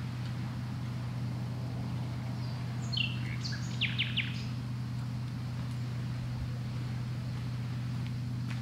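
A bird calls briefly about three seconds in, a few high notes ending in three quick chirps, over a steady low hum.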